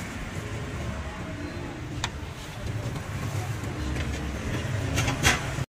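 Outdoor street ambience: a steady low rumble of road traffic and motorbikes, with a sharp knock about two seconds in and a louder clatter near the end.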